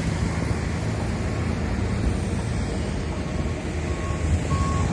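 Steady low rumble of road traffic. About three seconds in, a vehicle's reversing alarm starts beeping: a single tone repeating a little faster than once a second and getting louder.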